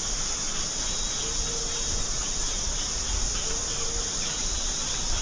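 Steady, high-pitched drone of an insect chorus, unbroken and even in level.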